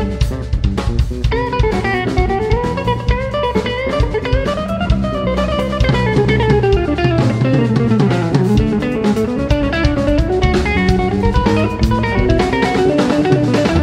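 Live instrumental jazz-rock trio playing in an odd meter: an electric guitar runs a fast melodic line that climbs and falls over electric bass and a drum kit.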